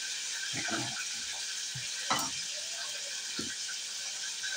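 Food sizzling in a frying pan, a steady hiss, with a few light knocks of a utensil stirring or touching the pan.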